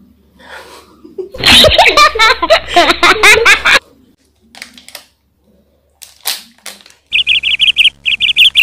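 A burst of dubbed-in laughter sound effect starts about a second and a half in and stops abruptly after a couple of seconds. A few faint crinkles of a foil chip packet being torn open follow. From about seven seconds a cartoon bird-tweet sound effect chirps rapidly and repeatedly.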